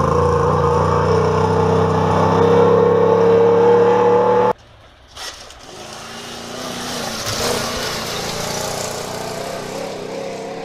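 Rally truck engine running hard under full throttle, its pitch slowly rising, cut off suddenly about four and a half seconds in; then another truck approaches and passes on a gravel road, engine and tyre noise swelling and fading.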